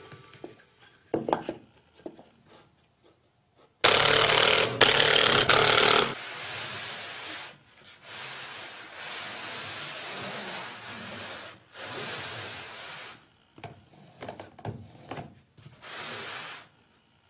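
Wood scraping and rubbing against wood in several stretches of a few seconds each, the loudest about four seconds in, with a few light knocks: plywood parts of a drill-mount jig being handled and fitted.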